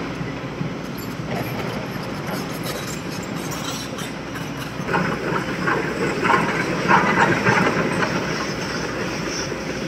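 Hydraulic excavators working in a stone quarry: steady diesel engine rumble with metallic clanking, and a run of louder clattering knocks from about five to eight seconds in.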